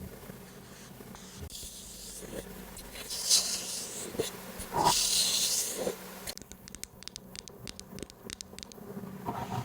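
Close-miked ASMR trigger sounds: a few short soft hissing rustles, then from about six seconds in a run of quick light taps or clicks, several a second.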